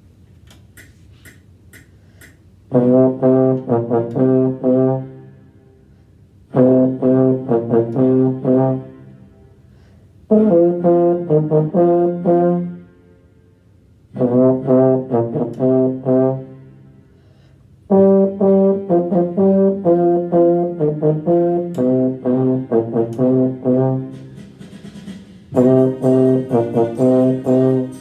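Trombone-led low brass playing a blues riff of short repeated notes, in phrases of about two to three seconds separated by brief rests, after a few quick count-off clicks.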